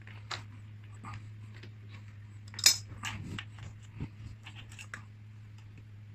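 Steel bike tools (chain whip, lockring tool and spanner) clinking and clicking against a Shimano cassette while the lockring is loosened, with one sharp, loud metallic snap about two and a half seconds in.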